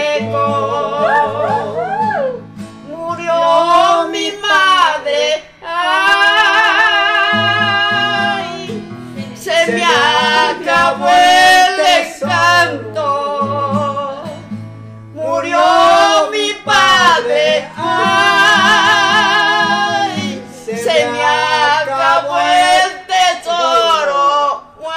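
An elderly woman and a man singing a slow Spanish-language song together, with wavering held notes and short breaks between phrases, to an acoustic guitar.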